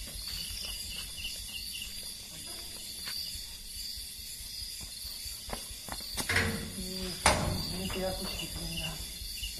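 Crickets chirping steadily. A sheet-metal door is unlatched and pulled open, with two loud metallic knocks about six and seven seconds in.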